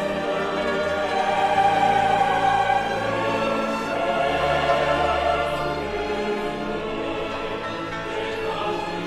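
Operatic music: a choir singing long held notes with orchestral accompaniment.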